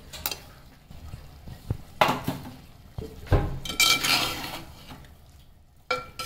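Steel spoon knocking, clinking and scraping in a clay cooking pot as spice powder is added and stirred into the prawns. Irregular knocks, a few with a brief metallic ring, with a short quiet spell near the end.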